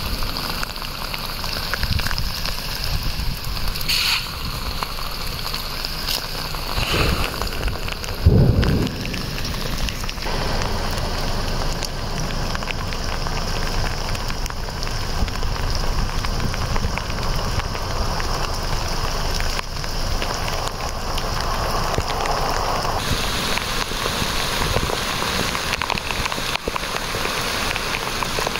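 Heavy rain mixed with hail falling steadily, a dense hiss and patter on the ground, with a brief low thump about eight seconds in.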